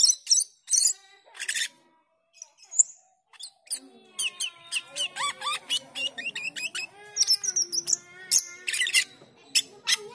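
Asian glossy starling singing: sharp high chirps and clicks, a short pause about two seconds in, then a fast, continuous chatter of varied squeaky, bending notes from about four seconds in.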